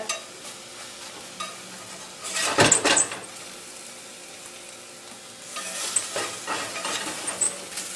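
Slotted spatula scraping egg fu yung patties off the bottom of a cast-iron skillet, in two bouts, about two seconds in and again near the end, over a light sizzle of frying oil.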